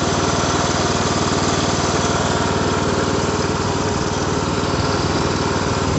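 Cub Cadet riding lawn mower's engine running steadily.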